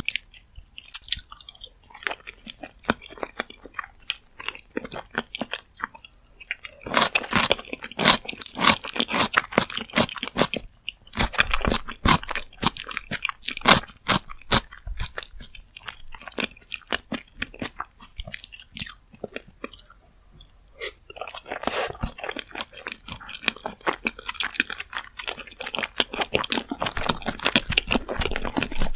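Close-miked eating sounds: a person chewing, biting and slurping rosé jjimdak, the braised chicken with glass noodles, with rapid irregular wet smacks and crunches. Two long busy stretches of chewing come about a quarter of the way in and again near the end.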